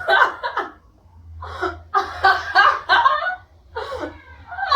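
Laughter in short, choppy bursts: a quick burst at the start, then a longer run of rapid laughing pulses from about a second and a half in, and another burst near the end.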